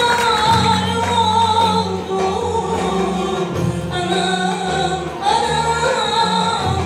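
Live Turkish folk song: a woman's voice singing a wavering, ornamented melody over a folk instrument ensemble, with a sustained low bass note under it that changes pitch a few times.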